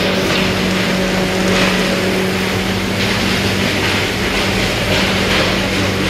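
Wood-pellet production line running: a steady, loud machinery noise with a constant low hum under a hiss, from the line's motors, fans and biomass furnace working together.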